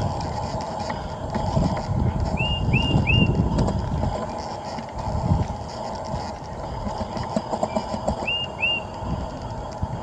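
A bird calling: three short, up-swept chirps in quick succession about two and a half seconds in, then two more near the end, over a steady low rumble.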